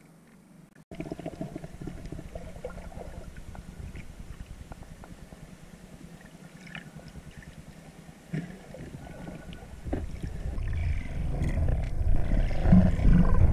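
Underwater water noise picked up by a submerged camera: a low, fluttering rumble with scattered clicks that starts suddenly about a second in, with a knock about two-thirds of the way through, and grows louder over the last few seconds.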